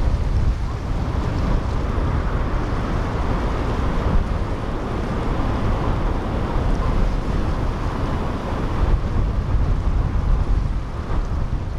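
Wind rumbling steadily on the microphone over the rush of waves and the engines and wake of a powerboat running through the inlet.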